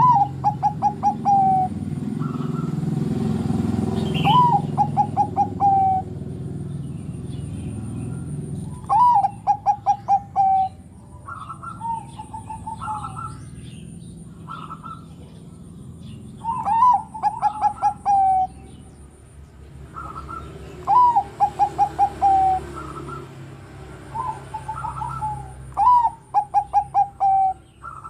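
Bangkok-type zebra dove (perkutut) singing: six phrases, each a short rising note followed by a quick run of about six staccato coos, repeated every few seconds.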